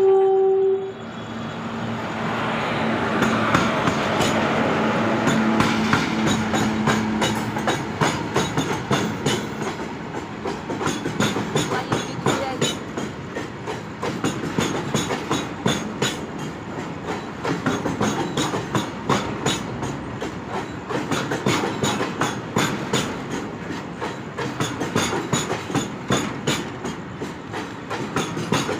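Freight train of gas tank wagons passing on the track, its wheels clacking over rail joints in a rapid, steady clickety-clack. It is drawn by a WAG-7 electric locomotive, and a steady hum sounds under the noise of the rolling train for the first several seconds. A brief tone sounds at the very start.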